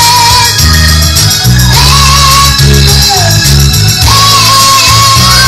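Loud recorded Latin pop song played over a PA loudspeaker: a singer holding long notes over heavy bass.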